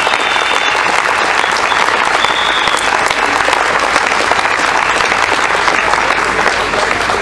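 Crowd applauding, a steady, dense clapping.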